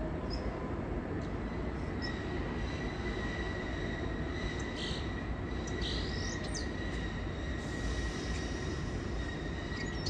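New York City subway train standing at the platform, a steady rumble and hum with a thin, steady high-pitched whine. A few bird chirps come through about five to seven seconds in.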